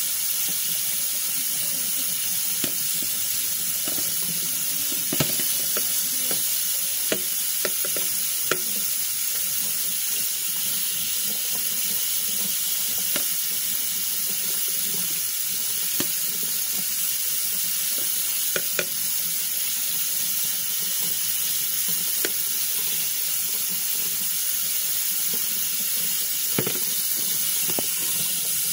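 Water running steadily from a tap onto a paintbrush's bristles and splashing into a sink, with a few short clicks and splashes scattered through it as the brush is worked under the stream.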